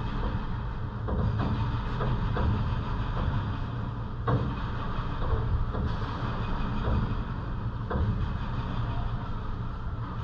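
Outdoor city ambience heard through a window: a steady rushing noise over a low rumble, with a few faint knocks scattered through it.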